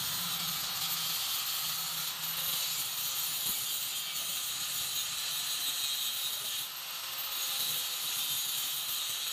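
Steady hiss of background noise, with a faint low hum that comes and goes.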